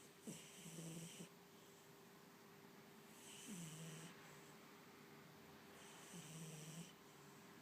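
A cat snoring, faint: three snores about two and a half seconds apart, each a short rasp with a low falling tone.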